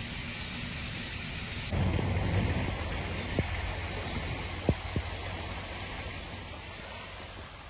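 Heavy rain falling with a steady hiss. About two seconds in, the sound cuts to a louder, deeper wash of rain and running runoff water, with a few sharp taps.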